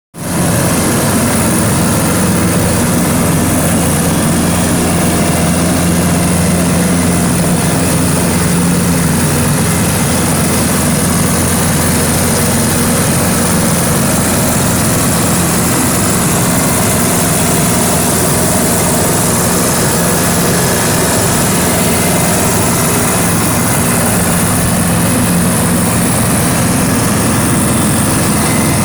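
Blower machine on a test run, running steadily at a constant speed with a continuous low hum.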